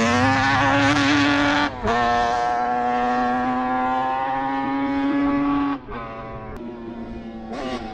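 Yamaha Banshee quad's twin-cylinder two-stroke engine held at high revs, briefly cut about two seconds in and then back on, before dropping to a quieter, lower note near six seconds.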